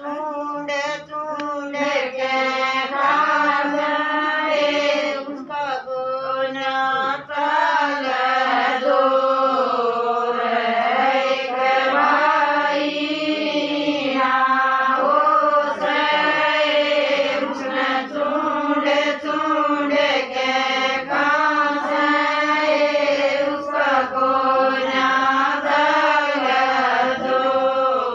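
Women singing a Haryanvi devotional bhajan to Krishna, a melody carried on without a break.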